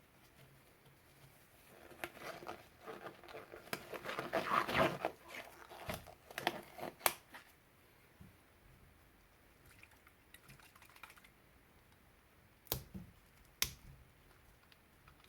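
Small hard objects being handled on a workbench: a run of light clicks, taps and rattles, then two sharp clicks near the end. No machine is running.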